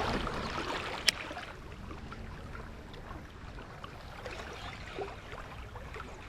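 Steady wash of flowing river water with low wind rumble on the microphone, and one sharp click about a second in.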